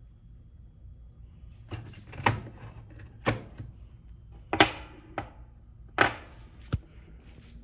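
A series of about seven sharp knocks and thuds, irregularly spaced over some five seconds, each ringing out briefly, over a faint steady hum.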